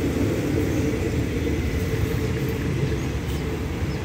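Low, steady rumble of passenger coaches rolling over the rails as the tail of a departing train pulls away, easing off slightly.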